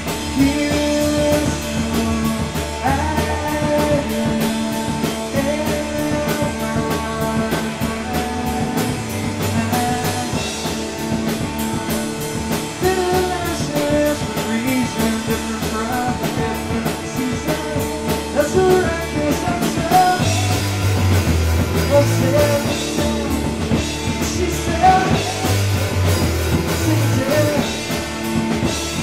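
Rock band music: drum kit with steady cymbal ticks, guitar and bass, with a sung melody line.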